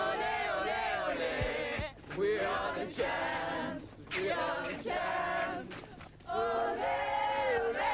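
A group of young voices singing loudly together in long held phrases, with short breaks about every two seconds.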